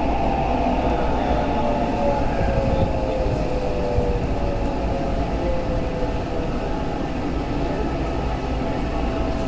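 Tokyo Metro 8000 series subway train heard from inside the car as it brakes into a station: the traction motors' whine slides slowly down in pitch over a steady rumble of the wheels and running gear.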